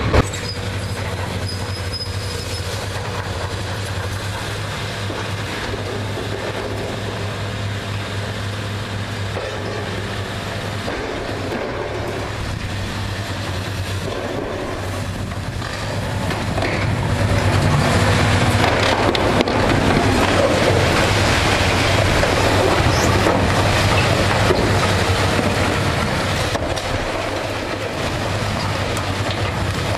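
Heavy demolition machinery working: a steady low diesel engine hum under a continuous rough rumble and clatter, which grows louder about halfway through and eases off again near the end.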